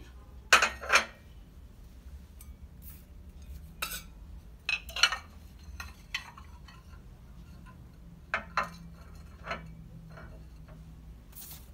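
Porcelain plates clinking as they are set down on the glass shelves of a china cabinet: about ten separate sharp clinks spread through, the loudest a pair about half a second in.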